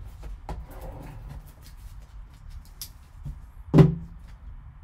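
Light clicks and rustles of hands handling a sealed cardboard card box, then a single sharp knock on the table near the end as a hockey puck is set down.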